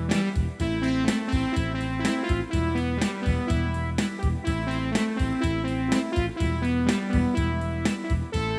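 Yamaha PSR-E373 portable keyboard playing 80s-style music: sustained chords and a melody over an auto-accompaniment with a steady drum beat and bass.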